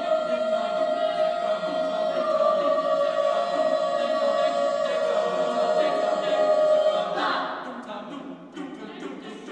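Choir singing a long, sustained chord with no accompaniment. The singing fades down about seven seconds in.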